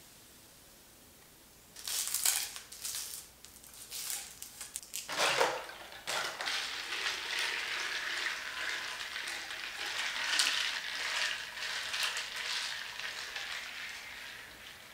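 Carbonated hard seltzer poured into a plastic cup of ice, starting about two seconds in with sharp crackles and a splash. It then fizzes and crackles steadily over the ice while being stirred with a straw.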